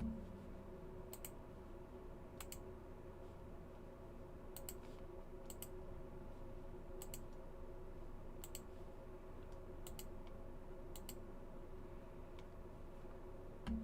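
Computer mouse clicking: sparse sharp clicks, each often a quick double tick, about one every one to two seconds, over a steady electrical hum. A dull thump at the start and another near the end.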